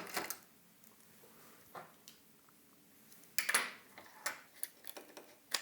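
Small hard plastic and metal parts of a disassembled electronic wind instrument clicking and clattering as they are handled and set down on a work surface. It starts with a quiet stretch, then a burst of clicks about three seconds in, followed by a few scattered knocks.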